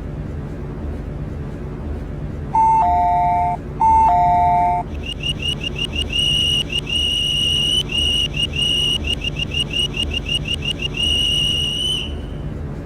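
MTR C-stock train door chime: a descending two-note ding-dong heard twice, then about seven seconds of rapid high-pitched warning beeps that stop suddenly. This is the sign that the doors are closing. The train's steady low hum runs underneath.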